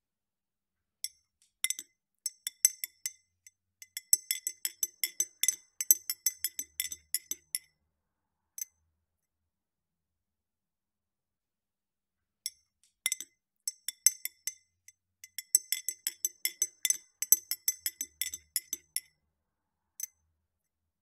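Metal spoon stirring tea in a ribbed glass, clinking quickly against the glass in two bouts of about six seconds each, each bout followed by one single clink.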